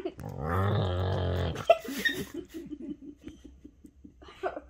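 Two whippets making play vocalisations while they mouth each other. First comes a long, low, drawn-out sound lasting over a second, then a sharp click. After that there is a quick run of short low sounds, about five a second, and a brief higher cry near the end.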